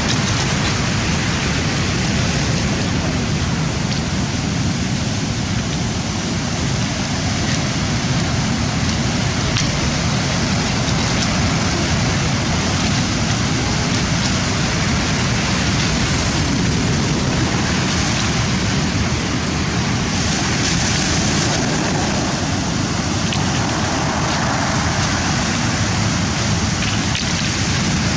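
Steady roar of rough surf breaking on the shore, a continuous wash of wave noise with no break.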